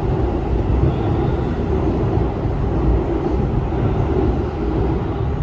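Loud, steady low rumble of passing vehicles, even throughout with no clear rise or fade.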